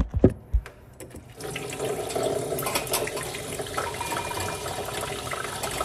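A few knocks as the phone camera is handled and set in place, then a kitchen tap runs steadily into a stainless steel sink full of dishes, with light clinks among them.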